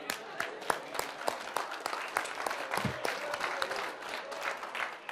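Audience applauding, many hands clapping irregularly.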